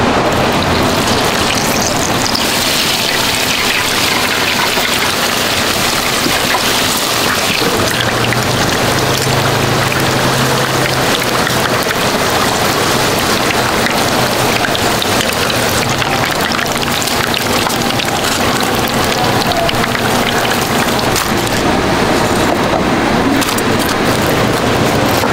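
Dumplings frying in a deep fryer of hot oil, with a steady, dense sizzle and crackle.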